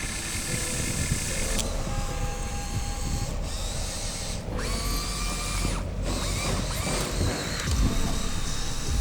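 Small electric motors and plastic gearboxes of a radio-controlled toy construction vehicle whirring and grinding, their whine shifting in pitch as the motors work under load.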